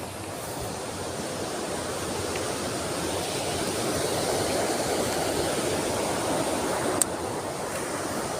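Flowing stream water rushing steadily, slowly growing louder, with one sharp click about seven seconds in.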